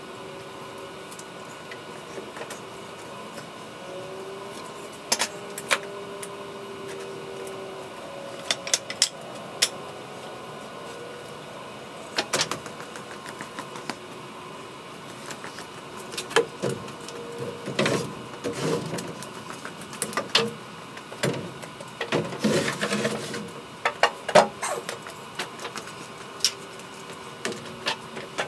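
Scattered knocks and clicks of work on the wooden house framing, sparse at first, then coming thick and fast for several seconds in the second half.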